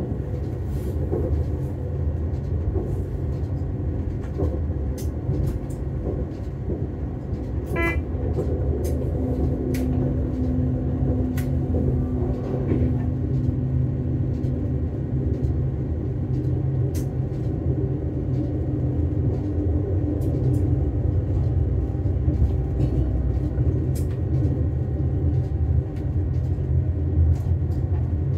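Diesel railcar running along the line: a steady low rumble of engine and wheels on rail, with sharp clicks now and then. A short pitched sound comes about 8 s in, and a steady hum is held for about six seconds just after it.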